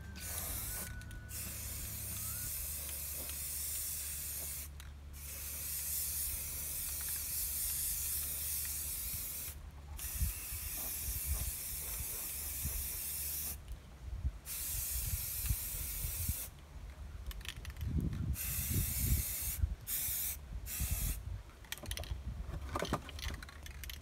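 Aerosol spray paint can hissing in repeated bursts of a few seconds each, broken by short pauses, the bursts growing shorter and choppier near the end. A few dull low thumps come about three-quarters of the way through.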